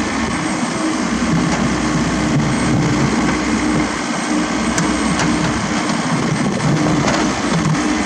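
Komatsu PC78US mini excavator's diesel engine running steadily under working load, its pitch wavering slightly, with a few faint clicks.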